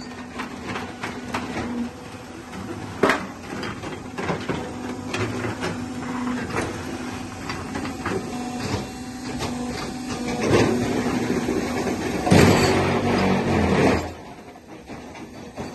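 Tile-making machinery running: repeated knocks and clatter over a steady hum, with a louder spell of rushing, grinding noise near the end.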